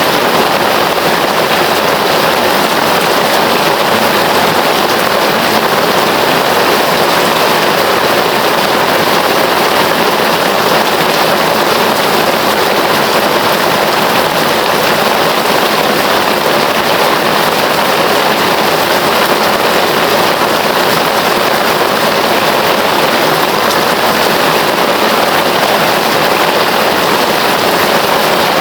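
Heavy rain falling steadily: a loud, even hiss with no breaks or changes.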